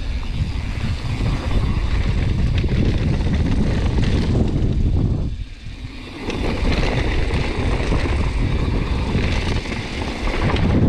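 Gale-force wind buffeting the GoPro's microphone during a mountain bike descent: a heavy, rough rumble that drops away for about a second around halfway, then comes back.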